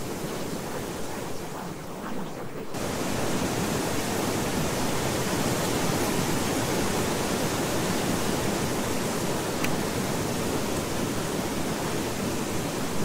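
Steady, even rushing noise with no distinct events: the masking noise bed of a subliminal affirmation track. About three seconds in it grows louder and brighter as more hiss comes in, then holds steady.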